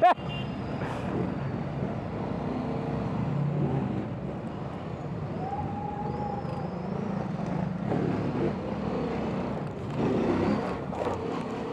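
Motor vehicle engines running steadily, a low hum over a background haze.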